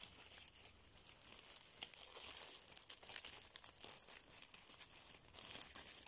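Dry fallen leaves and twigs rustling and crackling, with many small irregular snaps, as the leaf litter is disturbed.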